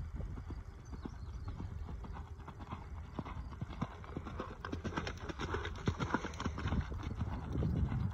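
A horse's hoofbeats on sand arena footing as it is ridden past, growing louder and closest about five to seven seconds in.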